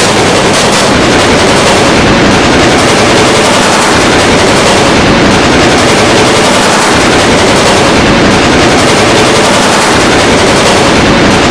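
Loud, dense, heavily distorted wall of noise from many layered, effect-processed copies of one sound clip played at once, near clipping, with no clear tune or voice.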